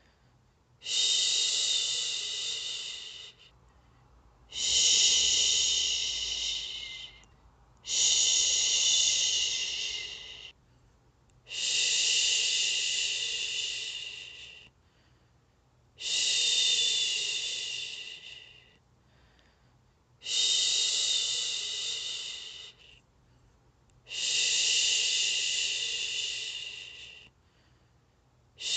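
A woman shushing, a long 'shhh' repeated about every four seconds, seven times. Each shush starts strongly and tapers off over two to three seconds. It is a rhythmic soothing sound for lulling a baby to sleep.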